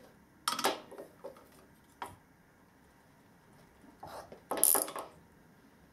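Metal clinks from tools and the motor casing being handled on a workbench: a short cluster about half a second in, a single click near two seconds, and a brighter clatter around four to five seconds.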